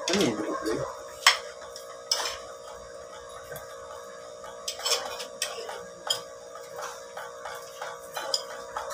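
Spoons and a fork clinking and scraping on a ceramic plate and bowl while eating, as scattered sharp clicks every second or so, over a steady background hum.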